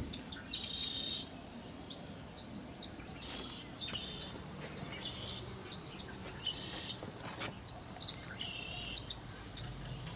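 Birds chirping and calling in short repeated bursts, over a faint low hum.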